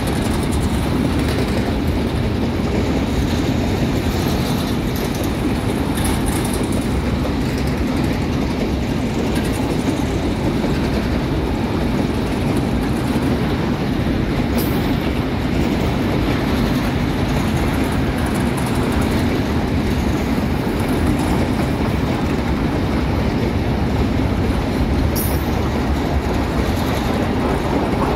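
A long train of empty grain hopper cars rolling past at speed: a steady, loud rumble of steel wheels on the rails.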